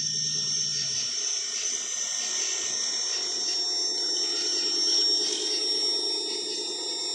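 Traxxas TRX-4 Sport RC crawler's electric motor and gearbox whirring steadily as the truck crawls over gravel, setting in about two seconds in. Insects chirp in a steady high tone throughout.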